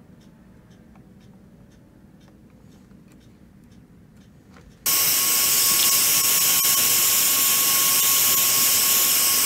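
Faint ticking, then about five seconds in a heat gun switches on abruptly and runs steadily: a loud fan hiss with one steady whine, used to shrink heat-shrink tubing over freshly soldered wire splices.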